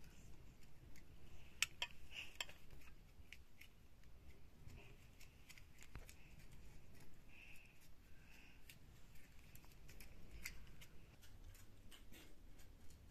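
Metal spoons clinking and scraping against a stainless steel bowl as rice is scooped out, in scattered light clicks, the sharpest about one and a half to two and a half seconds in.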